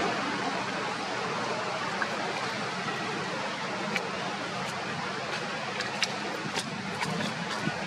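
Steady background hiss with scattered faint, sharp clicks, more of them in the second half.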